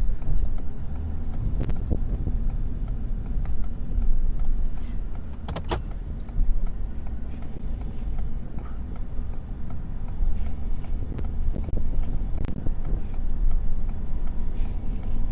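Pickup truck cab noise while driving on a snowy road: a steady low engine and road rumble, with scattered light clicks and knocks and one brief sharper sound about six seconds in.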